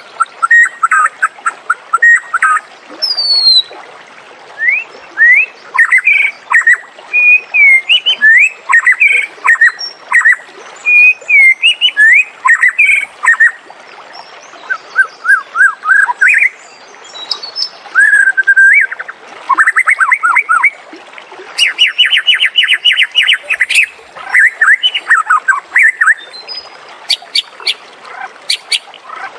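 White-rumped shama singing: a continuous song of varied whistled phrases, rising and falling notes and quick chattering trills, with one fast, even trill held for about two seconds in the last third.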